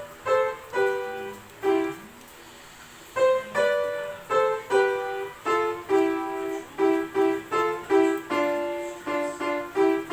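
A child playing the piano, a simple melody picked out one note at a time, with a pause of about a second partway through before the notes pick up again more quickly.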